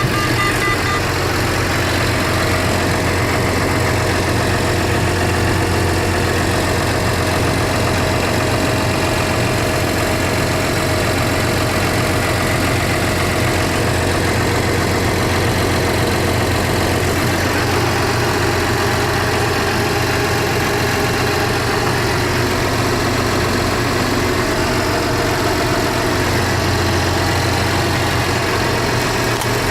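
2008 New Holland T8030 tractor's diesel engine running steadily at an even, unchanging speed. A quick run of high beeps stops about a second in.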